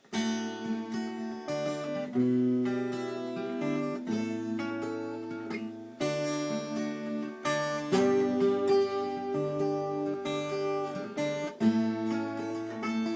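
Acoustic guitar strumming the chord intro to a folk song, the chords changing every second or two.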